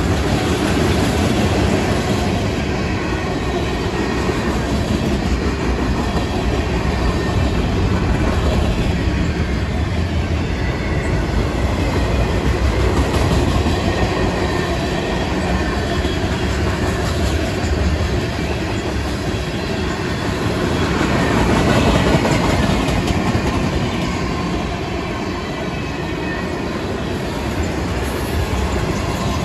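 Freight train of tank cars rolling past close by: a steady rumble of steel wheels on rail, thick with rapid clicking, swelling briefly about two-thirds of the way through.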